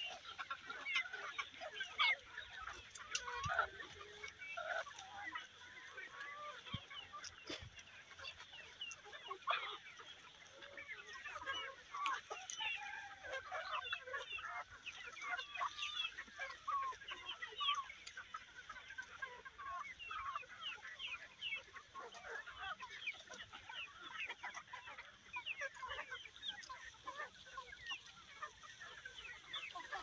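A flock of chickens clucking and calling continually, many short calls overlapping one another.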